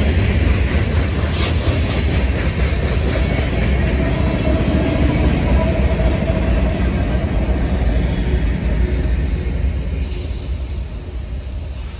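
Slow freight train's last cars rolling past, followed by its rear distributed-power diesel locomotives, an NS ES44DC and an AC44C6M, with a heavy low rumble. The sound fades near the end as the tail of the train moves off.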